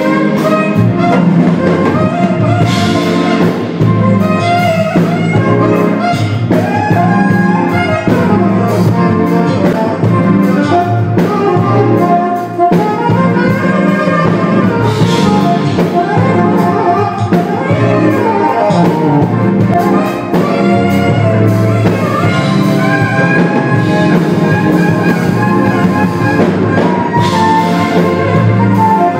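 Live band playing: a saxophone carries the lead line over keyboard, electric bass and drum kit.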